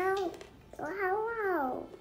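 Two drawn-out wordless vocal sounds: a short one at the start, then a longer one that rises and falls in pitch.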